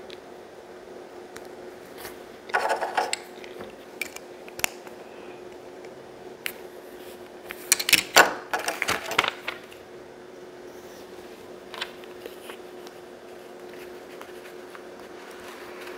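Small plastic LEGO pieces clicking and clattering as they are handled and pressed together by hand, with a short burst of rattling about three seconds in, a longer, louder one around eight to nine seconds in, and scattered single clicks between.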